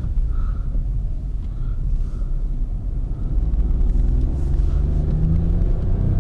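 Volkswagen Polo driving: steady low road and engine rumble, with the engine note rising about four seconds in as the car speeds up.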